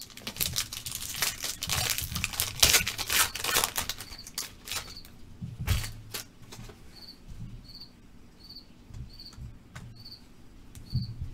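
A trading card pack wrapper being torn open and crinkled for several seconds, then scattered light clicks of cards being handled. A faint high chirp repeats about twice a second in the second half.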